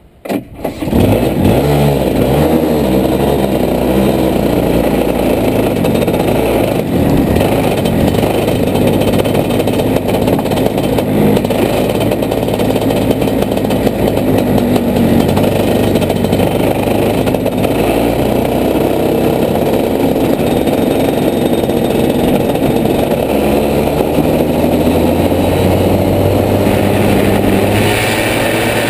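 Rotax 125cc two-stroke kart engine starting, catching about a second in, then running under throttle as the kart drives, its pitch rising and falling.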